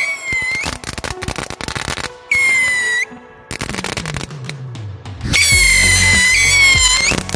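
Whistling fireworks set into a pumpkin going off: several shrill whistles of a second or two, each rising in pitch as it cuts off, with rapid crackling and popping between them.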